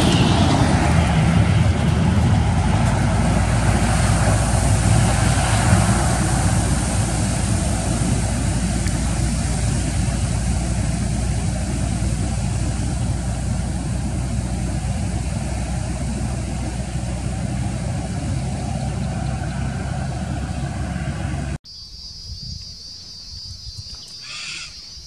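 Road train's diesel engine running close by as the rig drives through floodwater over the road, with a steady rush and hiss of water thrown up by its tyres. About three quarters of the way through it cuts off abruptly to a much quieter scene with a steady high buzz.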